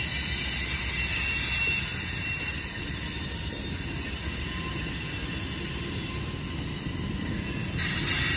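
Freight train of tank cars rolling past: a steady rumble and clatter of wheels on the rails, growing louder for a moment near the end.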